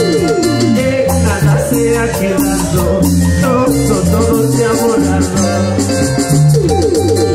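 Live Andean folk band music led by a harp, with a pulsing bass line. Quick falling runs of harp notes come at the start and again near the end.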